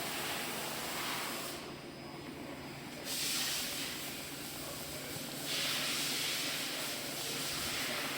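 Hissing from an Orbitalum Orbimat 165 CA orbital TIG welding setup during its test run, over a steady low hum from the machine. The hiss fades out for about a second and a half, about two seconds in, then returns louder.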